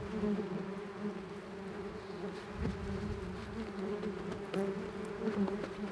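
Many yellow jackets buzzing in a steady, low drone around their underground nest as it is dug up: an agitated swarm defending the nest. A few faint ticks and scrapes are heard under the buzz.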